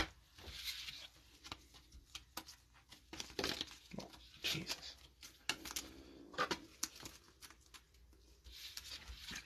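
Gloved hands handling trading cards and a clear plastic top loader: faint, scattered rustles, crinkles and small clicks of card and plastic.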